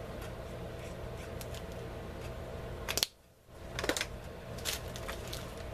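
Steady room hum with scattered small clicks and taps from handling craft supplies on a tabletop. About three seconds in a sharp click is followed by a brief cutout of all sound, and a few more clicks come after it.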